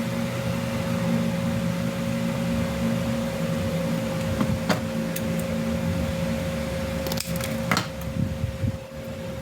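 Steady motor hum with a constant tone, like a running appliance or fan. A light click comes about halfway through, and a few more sharp clicks follow near the end.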